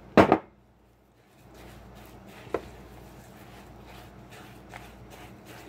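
A sharp double knock just after the start as the glass measuring cup is tapped against the rim of a stainless saucepan, emptying the last of the oats. Then a spatula stirs the thick oatmeal cookie mixture in the pan, a soft steady scraping with a couple of light clicks.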